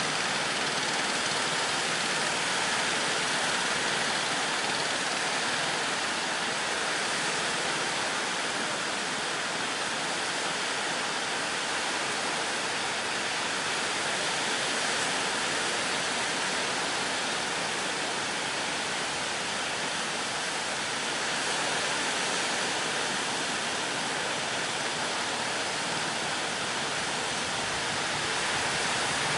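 Steady rushing noise of sea waves breaking, a continuous even roar with no engine tone in it.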